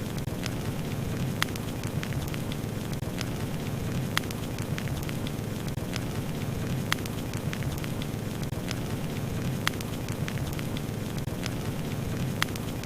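Burning wood fire crackling: a steady low rumble of flames under a scatter of small crackles, with a louder sharp pop every few seconds.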